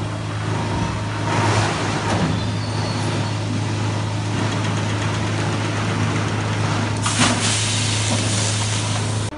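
Cooling tower fill forming line running in a plastics factory: a steady low machine hum under a wash of machine noise. It is broken by a burst of hiss about a second and a half in and a sharper one about seven seconds in.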